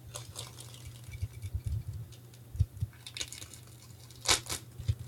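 Trading-card packaging being handled and opened: light rustling and clicks, a few soft knocks, and two sharp crackles a little after four seconds in.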